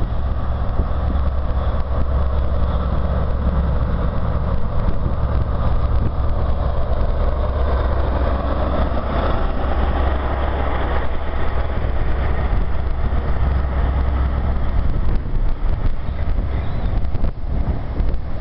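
InterCity 125 High Speed Train led by a Class 43 diesel power car running past along the platform: a steady low engine drone under the rumble of wheels on rail, swelling around the middle as the coaches go by.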